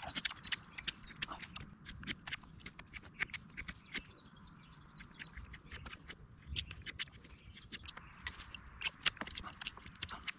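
Knife whittling wood, carving pointed tent pegs from sticks: a quick, irregular run of short, crisp scrapes and clicks.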